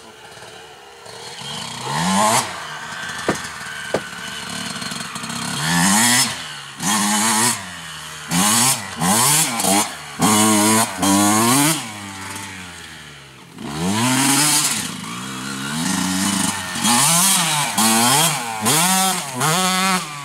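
Kawasaki dirt bike engine revving hard, its pitch climbing and dropping back over and over as the rider works the throttle, quieter near the start and briefly around thirteen seconds in.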